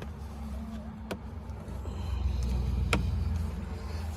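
Hands working a rubber boot into place around a UTV gear shifter lever: two sharp clicks, about a second in and near three seconds, over a low steady rumble that grows louder in the middle.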